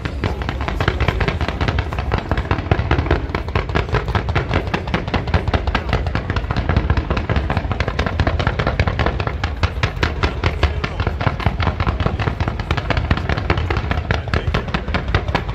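Fireworks barrage: a rapid, unbroken run of sharp pops and bangs, several a second, from low multi-shot shells and fountains bursting together.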